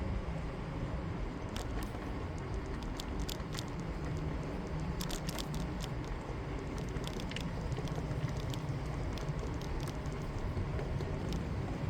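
Bicycle riding along a city street: a steady low rumble of wind and rolling tyres, with irregular sharp clicks and rattles through the middle.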